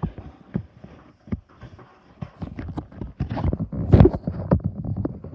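Small objects being handled close to the microphone: irregular clicks, taps and knocks, thickening into a louder cluster of rattling about three to five seconds in.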